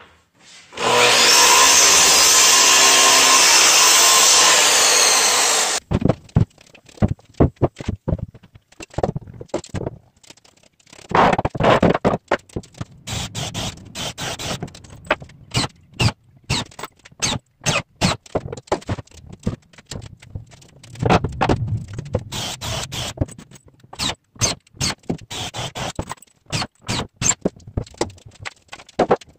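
Makita sliding miter saw running and cutting through a reclaimed wooden plank for about five seconds, stopping abruptly. Then many short, choppy bursts of cordless drill-driver work as the planter box is screwed together.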